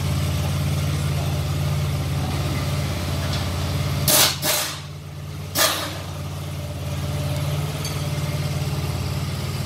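An engine idling steadily. About four seconds in come three short, loud bursts of hiss spread over about a second and a half, and the idle drops back for a moment before it returns.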